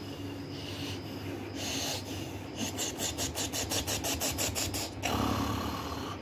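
A man's heavy, rasping breathing as he strains under a healer's hands. About two and a half seconds in it breaks into a fast rasping pant of about eight pulses a second for some two seconds, then gives way to a louder strained groan near the end.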